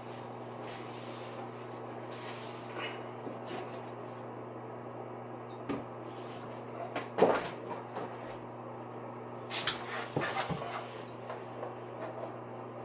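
Scattered plastic knocks and clicks from handling a non-electric bidet seat and its control. The loudest knock comes about seven seconds in, with a cluster of clicks a few seconds later, over a steady low hum.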